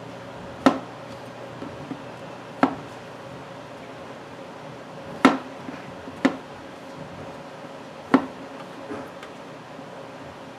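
Chef's knife cutting through white button mushrooms and knocking on a plastic cutting board: a handful of single, irregularly spaced chops, a second or two apart.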